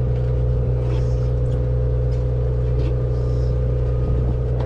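Steady low engine drone on board a party boat, even and unchanging, with a few faint light taps over it.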